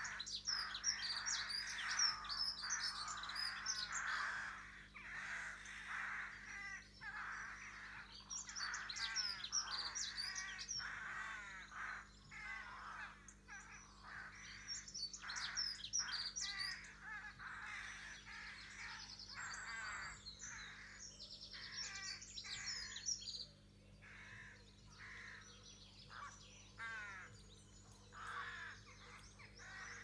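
Many wild birds singing and calling at once, a garden bird chorus of overlapping chirps, trills and phrases. The singing is densest in the first dozen seconds and grows sparser and quieter after about 23 seconds.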